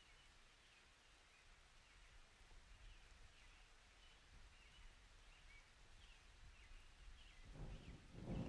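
Faint birds chirping, short high calls repeating about once a second. Near the end a low rumble of thunder starts to build.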